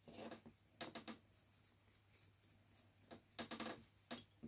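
Faint, scattered clicks and light taps of a motorcycle carburetor body and small hand tools being handled, as a screw is taken out of the carburetor's choke body.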